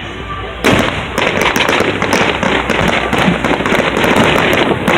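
Fireworks going off in a dense barrage: about half a second in, the sound breaks into a continuous mass of rapid crackling bangs that keeps going.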